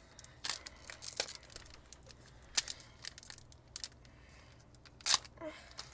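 Pokémon trading cards and foil booster-pack wrappers being handled: scattered crinkles and rustles, a few sharp ones, quieter for a moment a little past the middle.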